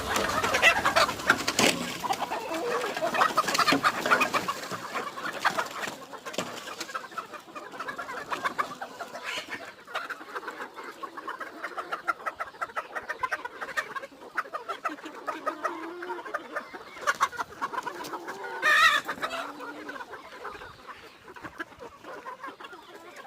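A flock of 66-day-old Sonali chickens clucking and calling, with many short calls and one louder call about nineteen seconds in.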